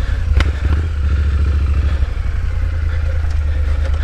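Triumph Street Scrambler's 900 cc parallel-twin engine running steadily with a low, even engine note as the bike rides over rough dirt, with one sharp knock about half a second in.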